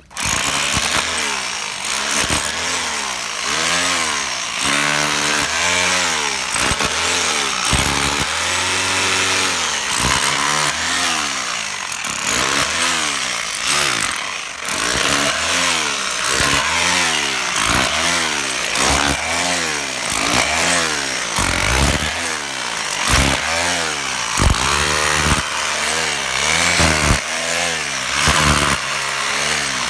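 Electric demolition hammer chiselling through asphalt and packed rubble. It starts abruptly and runs loud and continuously, its pitch rising and falling over and over as it bears down.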